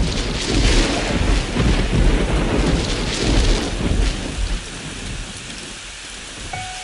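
Thunderstorm sound: steady rain with rolling thunder that swells and then fades down. The first notes of music come in near the end.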